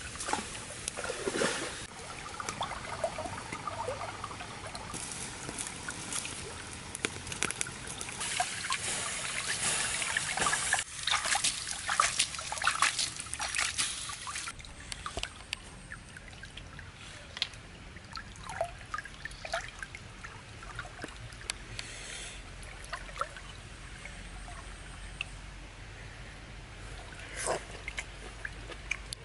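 Snails cooking in a wicker basket over an open wood fire: a dense crackling and sizzling, loudest in the first half, thinning to scattered pops and clicks later on.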